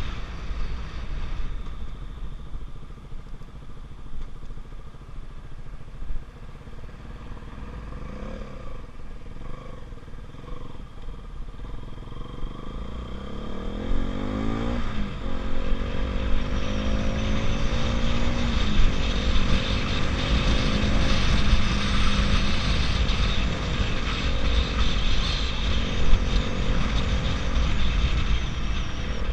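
KTM RC 200's single-cylinder engine, at first running quietly, then accelerating about halfway through: the pitch climbs and drops at two upshifts, then holds a steady cruise. Wind rumble runs underneath throughout.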